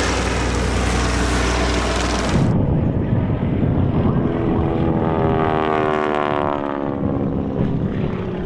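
Propeller aircraft engines: a steady drone cuts off after about two seconds, followed by a propeller plane passing by, its pitch sweeping as it goes over.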